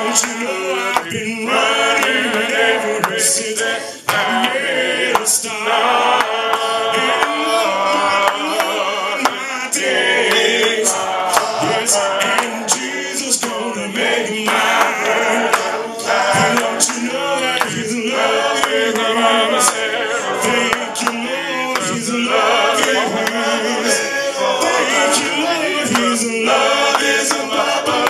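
A church congregation singing together, many voices without instruments, in the a cappella style of the Churches of Christ.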